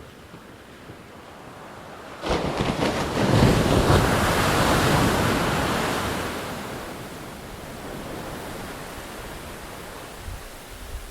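An ocean wave breaking: a sudden loud rush of surf about two seconds in that swells, then washes out and fades over several seconds into the steady hiss of the sea.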